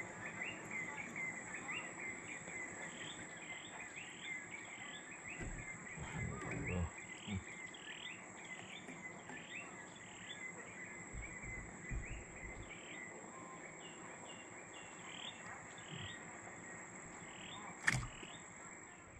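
Riverside forest ambience: a steady high insect drone with many short chirping calls repeating throughout. A few low thumps about six and eleven seconds in, and one sharp click near the end.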